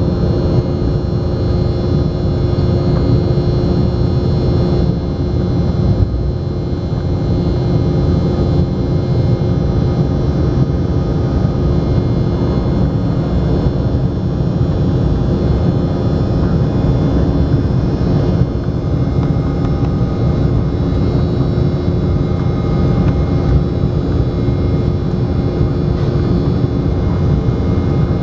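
Inside the cabin of an Embraer 190 in flight, its GE CF34 turbofan engines running at steady power: a constant deep rumble with airflow rush and several steady whining tones above it.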